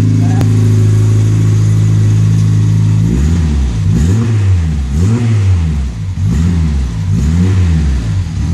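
Peugeot 106 Rallye's 1.3-litre four-cylinder engine, in Group N rally trim, runs steadily for about three seconds. It is then revved in repeated blips, rising and falling about once a second.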